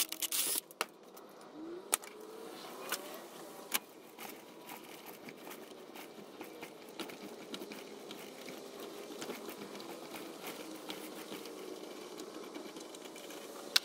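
Power drill turning slowly, driving a pipe-thread tap through a steel nut clamped in a bench vise to cut threads. A few sharp clicks near the start and a short rising whine about two seconds in, then a steady motor hum.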